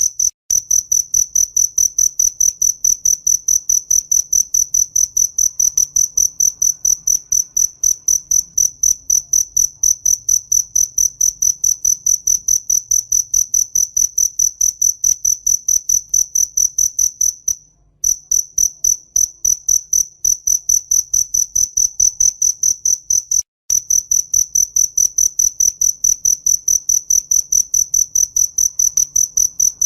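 A cricket chirping steadily: one high, shrill tone pulsed evenly about three times a second. The chirping breaks off briefly a few times, about 18 and 23 seconds in.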